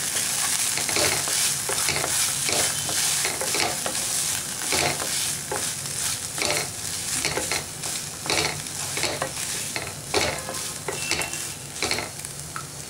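Wooden spatula stirring and scraping cooked pearl barley, peanuts and onion through a hot oil tempering in a pan, with strokes about twice a second over a steady frying sizzle.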